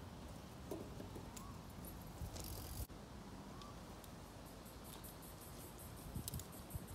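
Faint outdoor ambience with a low wind rumble on the microphone as a mountain bike is ridden past. A run of light, evenly spaced ticks comes in over the second half as the bike comes back across on its rear wheel, and two short rising whistles are heard about a second and a half in and again after three and a half seconds.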